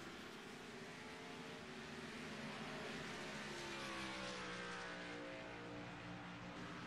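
Race car engine running, its note rising to a peak about halfway through and then falling away again.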